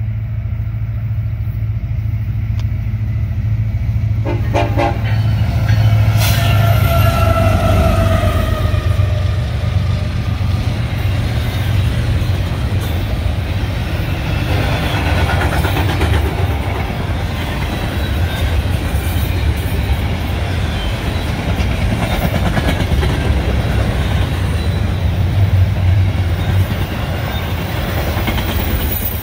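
Union Pacific diesel locomotives passing close by with a heavy engine rumble, and a horn blast about six seconds in that drops in pitch as they go by. Then the double-stack intermodal container cars roll past with steady wheel-on-rail noise and rhythmic clicking over the rail joints.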